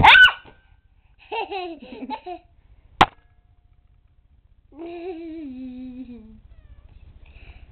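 A toddler girl's silly wordless vocal play: a short, loud, high squeal at the very start, giggly babbling a second or so in, then a long drawn-out sound that slides down in pitch. A single sharp click falls about three seconds in.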